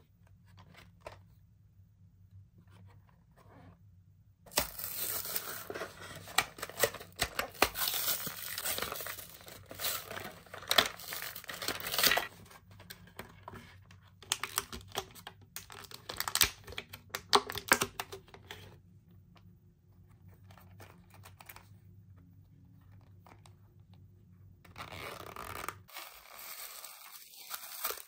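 Clear plastic blister packaging crackling and crinkling as it is pried open and handled. The crackling starts about four seconds in and comes in bursts, then quieter handling and a short rustle of tissue paper near the end.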